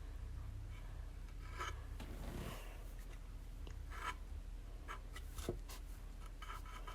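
Short, irregular scratchy rubbing strokes of paint being worked onto a wooden birdhouse, with a single sharper click about five and a half seconds in.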